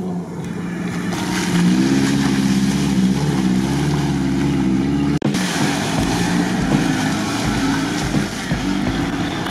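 Engine of a modified Suzuki Vitara off-roader revving as it drives through mud, its pitch rising and falling. About five seconds in, the sound cuts to another SUV's engine running in the mud, with low wind buffeting on the microphone.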